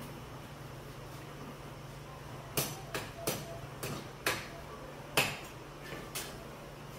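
Metal kitchen utensils knocking and clinking against steel pots and a kadai, about eight sharp knocks in the second half, the loudest a little past five seconds in. A steady low hum runs underneath.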